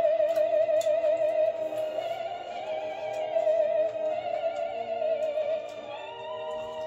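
Music from a TV commercial: a high melody of long held notes with strong vibrato, stepping up to a higher note near the end.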